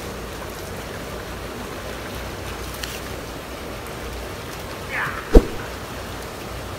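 Shallow water sloshing and splashing as dogs wade and thrash in a concrete canal. About five seconds in comes a short falling cry, then a single sharp thump.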